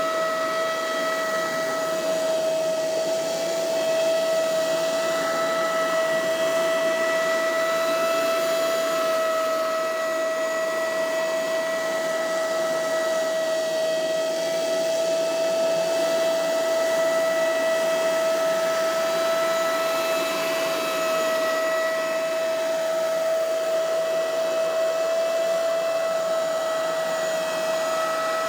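Scag Windstorm stand-on leaf blower running steadily, a constant high whine over a rushing blast of air.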